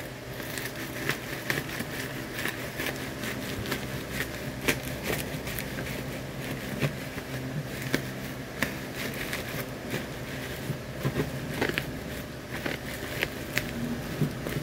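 Bubble wrap around a parcel crinkling and crackling in irregular clicks as hands grip and turn it, over a steady low hum.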